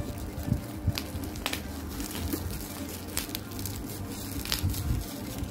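Bubble wrap crinkling and crackling as it is pulled off a plastic bottle by hand, with irregular sharp crackles.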